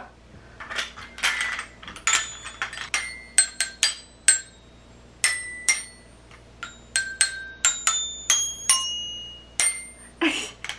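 Toy glockenspiel with rainbow-coloured metal bars struck with a ball-headed mallet: a long run of single ringing notes, unevenly spaced, tapped out as an opening signal. A short laugh near the end.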